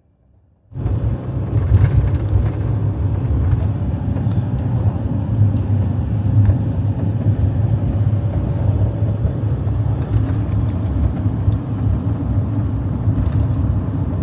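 Steady low rumble of a van driving on the road, engine and road noise together, with scattered faint clicks. It starts abruptly about a second in.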